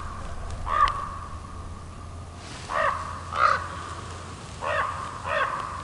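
A crow cawing five times: a single caw about a second in, then two pairs of caws near the middle and near the end.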